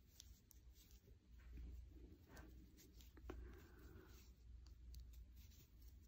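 Near silence, with the faint rustle and light clicks of a crochet hook pulling yarn through stitches.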